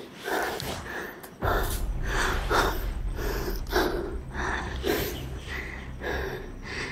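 A man panting hard and fast, catching his breath at about two breaths a second. A low wind rumble on the microphone starts about a second and a half in.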